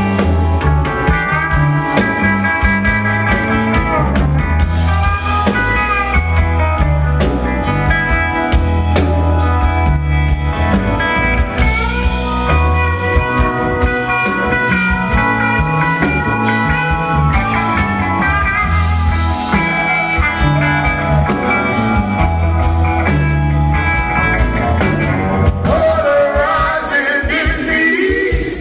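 Blues band playing live: held melodic notes over a moving bass line and steady drum hits, with a wavering, sliding melodic line near the end.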